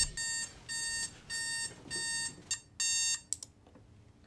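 Homemade Arduino-driven alarm clock beeping in a run of short electronic beeps, a little under two a second. The beeps stop a little after three seconds in, with a click as it is switched off.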